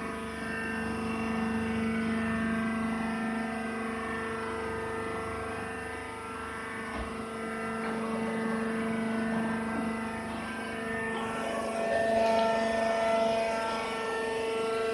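Hydraulic rice husk baler's power unit running with a steady mechanical hum. Its tone shifts and grows a little louder about three-quarters of the way through.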